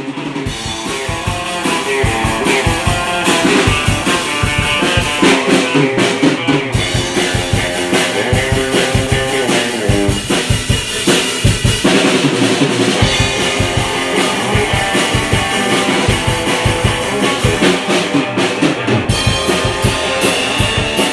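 Electric guitar and drum kit playing together as a rock band: guitar chords through an amplifier over a steady drum beat of kick, snare and cymbals.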